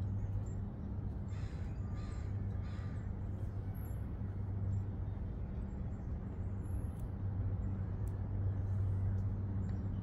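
A crow cawing three times in quick succession, starting about a second in, over a steady low hum.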